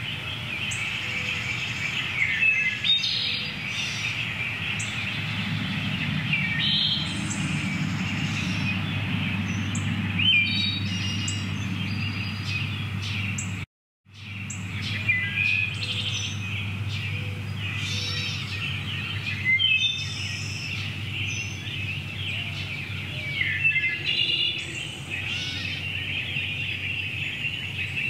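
Small songbirds chirping and singing in a busy chorus of short calls and trills, over a steady low rumble. The sound cuts out completely for a moment about halfway through.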